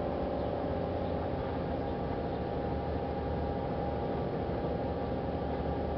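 Pontoon bridge's hydraulic winch machinery running steadily as its cable hauls the floating barge back into place, a constant low hum with a steady tone above it.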